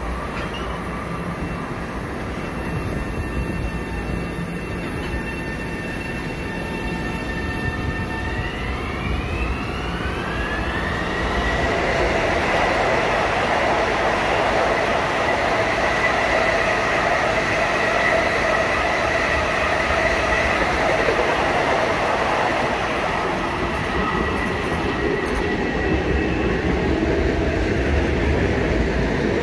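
Long Island Rail Road M7 and M9 electric multiple-unit trains running past with steady rail and wheel noise. A high whine rises in pitch about eight to eleven seconds in, then holds steady as the trains grow louder.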